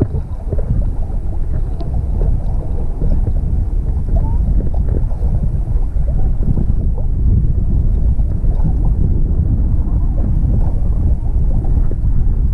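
Wind buffeting the microphone in a steady low rumble, with small sea waves lapping.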